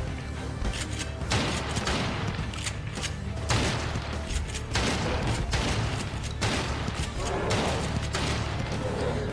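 Background music with a steady bass line under a run of sharp bangs, like a volley of gunshots from a television action scene.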